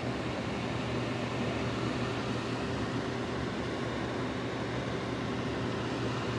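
Small ceramic space heater's fan running steadily: an even whoosh of air with a low motor hum.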